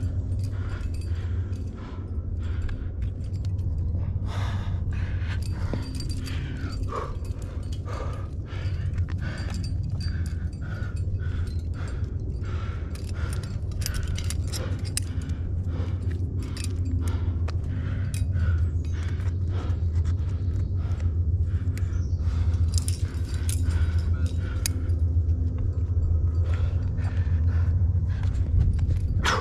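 Metal climbing gear (cams and carabiners racked on a harness) clinking and jangling in frequent, irregular clicks as a climber moves up the rock, over a steady low rumble.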